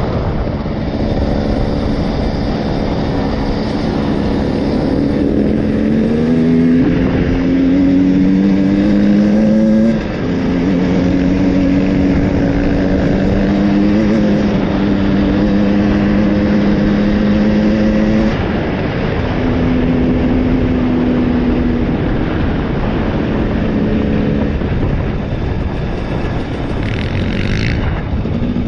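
Two-stroke TPI enduro motorcycle engine under way on a gravel track. Its note climbs as it accelerates, drops sharply at a gear change about ten seconds in, then holds steady before easing off a few seconds before the end.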